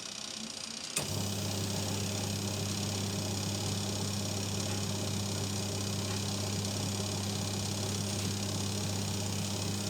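Twin-tub washing machine's wash motor switched on with a click about a second in, then running with a steady electric hum and whirr.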